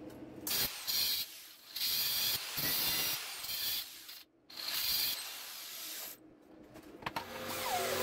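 Angle grinder grinding steel cutlery in several short bursts, its hiss coming and going with brief drops between passes. Near the end, after a click, a smaller rotary sander with a sanding pad starts up and runs steadily.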